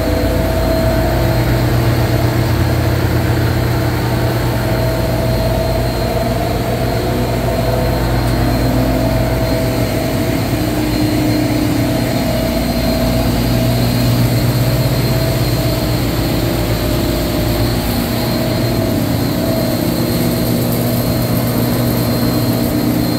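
Steady drone of a running air-cooled chiller's fans and compressors, with several humming tones that swell and fade, while a refrigerant recovery machine pulls the charge out of the leaking chiller next to it.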